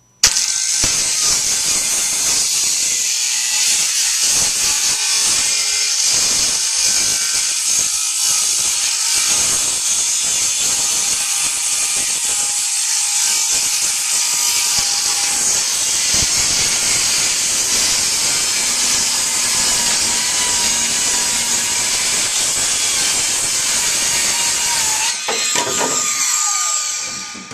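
Handheld circular saw running and cutting a long diagonal through a sheet of plywood, a steady high-pitched whine. Near the end it is switched off and winds down.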